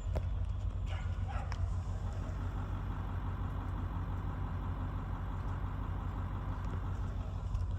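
Vermeer BC1800XL wood chipper's engine running steadily with a low rumble.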